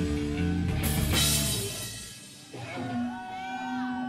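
Live rock band of electric guitars, bass guitar and drum kit playing the end of a song, with a loud cymbal crash about a second in. About two seconds in the full band drops out, leaving only sustained, wavering notes.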